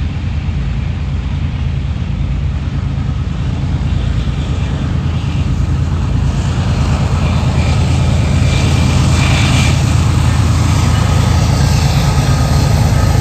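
Union Pacific diesel freight locomotives running, a steady low engine drone that grows gradually louder as they approach.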